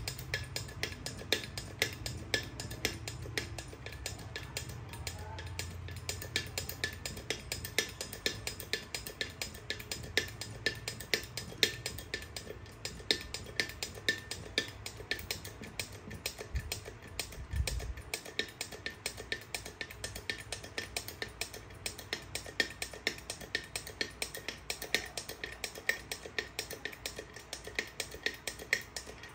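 15-ton hydraulic bottle jack being pumped up to full extension, its pump giving a rapid, even clicking of several strokes a second.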